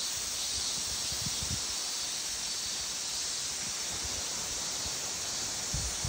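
Steady high-pitched outdoor hiss, with short gusts of wind buffeting the microphone about a second and a half in and again near the end.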